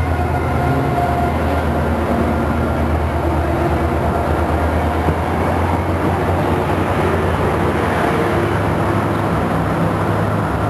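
An EMD F59PH diesel-electric locomotive, with a 12-cylinder two-stroke engine, passes close by with a steady low drone. Its train of bilevel commuter coaches then rolls past on the rails.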